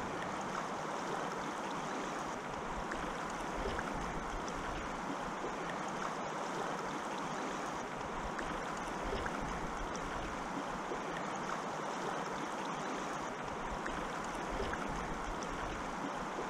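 Steady rush of shallow river current flowing close to the microphone.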